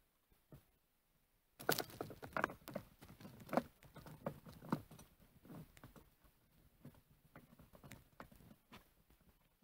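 Hands rustling and crackling among spruce twigs and moss, a dense run of small snaps, clicks and scrapes that starts about a second and a half in and thins out toward the end.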